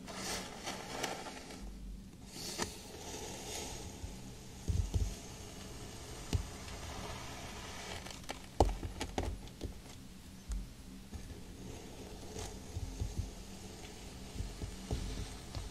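Plastic knife slicing through a packed block of kinetic sand close to the microphone: soft, crumbly scraping and crunching, broken by scattered sharp crackles and soft thuds, the loudest a little past the middle.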